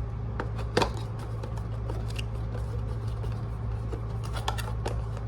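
Cologne box and packaging being handled and opened: scattered small clicks and rustles, with one sharper click about a second in, over a steady low hum.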